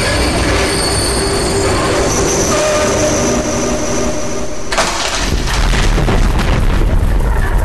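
Experimental noise music: a dense wall of hiss and grinding with several held squealing tones. About four and a half seconds in, it changes abruptly to a heavy low rumble with rapid crackling and a thin high whine.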